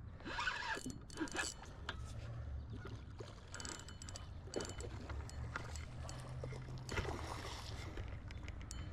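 Hooked carp thrashing at the surface of the creek while being fought on rod and reel, with several brief irregular splashes over a steady low rumble of water.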